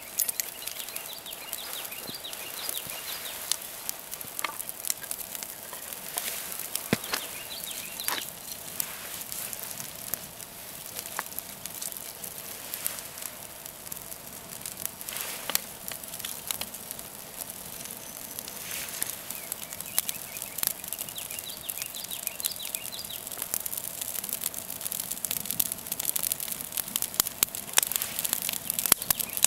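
Small campfire of black spruce twig kindling and split sticks crackling and popping as it catches, the pops growing thicker and louder toward the end.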